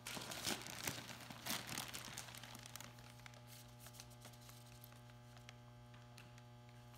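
Plastic sheeting crinkling and rustling as a plastic-wrapped packer is handled, busiest in the first two seconds or so and then dying down, over a steady low electrical hum.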